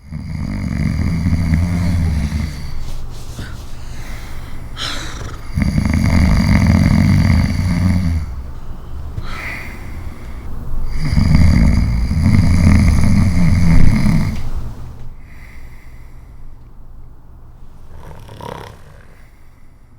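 A person snoring loudly: three long, low snores about five seconds apart. The snoring falls away to quieter breathing after about fifteen seconds.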